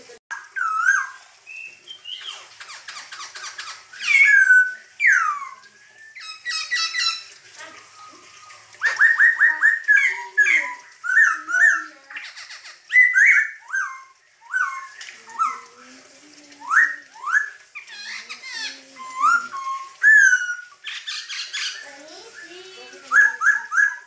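Caged black-throated laughingthrush (poksay hongkong) singing loudly and busily: varied whistled phrases of slurred rising and falling notes, quick runs of repeated notes and harsher rasping bursts, one phrase every second or two.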